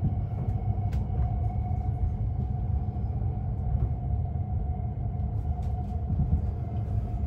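Hayabusa Shinkansen bullet train running, heard from inside the passenger car: a steady low rumble from the running gear and track, with a steady hum over it.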